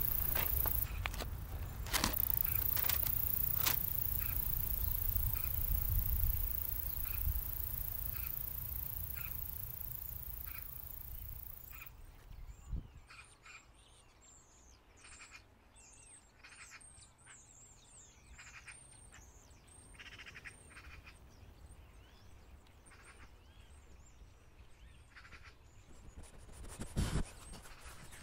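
Rustling and handling noise with scattered clicks and a low rumble. About twelve seconds in it changes abruptly to a quieter stretch of small birds chirping and twittering, with a couple of knocks near the end.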